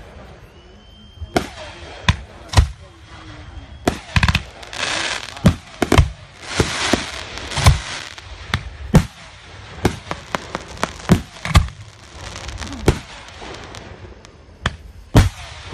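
Aerial fireworks shells going off one after another: a string of sharp bangs, some close together, with a hiss of burning sparks between them in the middle stretch.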